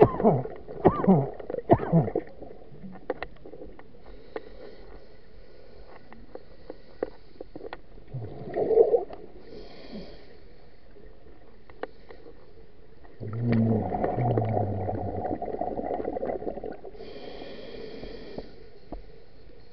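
Scuba diver breathing through a regulator underwater: exhaled bubbles gurgle out in bursts, at the start, around nine seconds and again from about thirteen to sixteen seconds, with the hiss of the regulator on the inhale around ten and eighteen seconds. Faint scattered clicks throughout.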